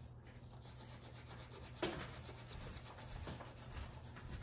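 Wax crayon rubbed back and forth on paper, faint coloring strokes, with a light tap a little under two seconds in.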